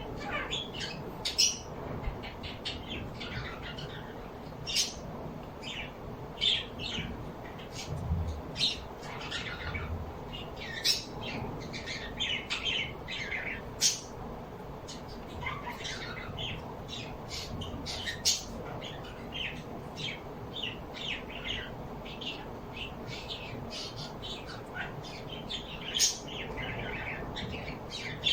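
A flock of small birds chirping and squawking, many short, high calls overlapping one another without a break.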